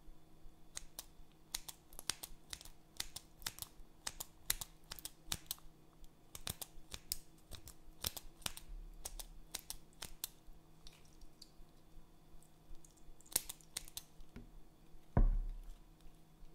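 Scissors snipping again and again through a mesh squishy stress ball, each cut a sharp click. The clicks come thick and fast for the first ten seconds or so, then thin out. Near the end there is a single louder dull thump.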